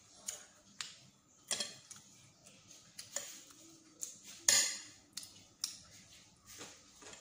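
A metal fork clicking and scraping on a ceramic plate, mixed with close-up chewing and eating sounds: a scattered series of short clicks and scrapes, the loudest about halfway through.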